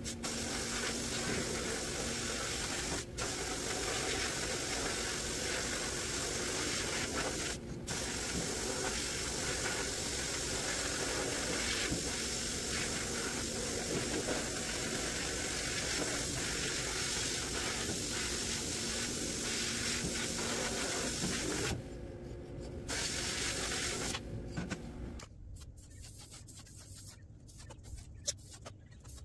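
Sandblast cabinet's blasting gun hissing steadily as the compressed-air stream of abrasive strips old rust and paint from steel mower parts. The hiss breaks off twice for an instant, stops and restarts near the end, then cuts off.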